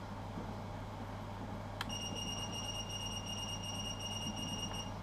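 A click a little under two seconds in, then a drone's Naze32 flight-controller buzzer sounding one steady high beep for about three seconds, switched on from the radio, that stops just before the end.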